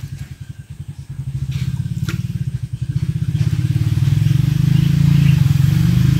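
A small engine running with a rapid, even pulsing beat, growing louder from about three seconds in as it draws closer.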